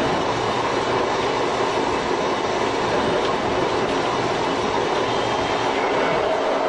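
Tobu 5700 series electric train with nose-suspended (tsurikake) traction motors, running steadily along the track.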